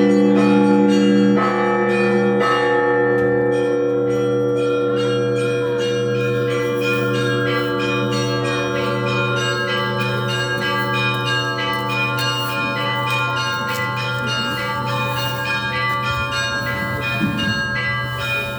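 Russian Orthodox church bells ringing a full peal. A deep bell hums steadily underneath while the small high bells are struck in a quick, repeating pattern that gets busier a few seconds in.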